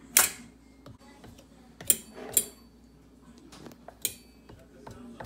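Metal fork clinking against the rim of a pie dish while crimping the edge of the pie crust: a few sharp clinks, the loudest just after the start, with more near the middle and about four seconds in.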